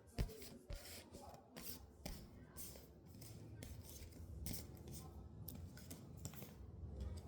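Tarot cards being shuffled and handled: a run of quick, irregular papery swishes and slides, with one sharp tap about a quarter second in.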